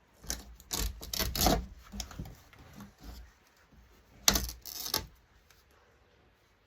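Small metal parts clattering and scraping as the monitor is taken apart by hand, in two bursts of clicks and rattles with a pause between them.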